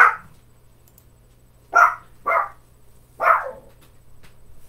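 A pet dog barking four times, one bark at the start, then two close together and one more, excited at hearing someone outside the house.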